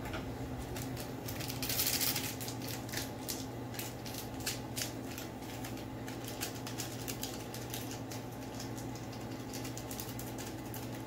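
A small paper or foil packet crinkling and rustling in the fingers: rapid irregular crackles and clicks, with a louder rustle about two seconds in. A steady low hum runs underneath.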